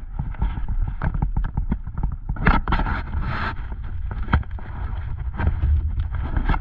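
Vehicle driving slowly over a gravel road, heard from inside the cab: a steady low engine and tyre rumble with many short knocks and rattles.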